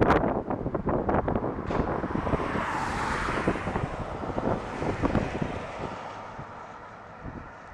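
Wind buffeting the microphone in irregular gusts, with a broad rushing swell in the middle, dying down near the end.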